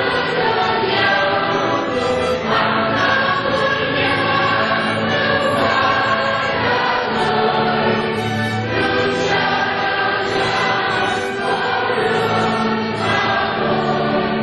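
Church choir and congregation singing a processional hymn together, with a steady instrumental accompaniment underneath.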